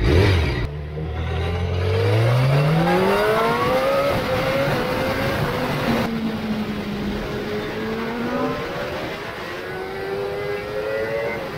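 Honda Fireblade superbike's inline-four engine heard from on board. Its pitch climbs steadily over the first few seconds as the bike accelerates, then it runs on at speed with further rises in pitch.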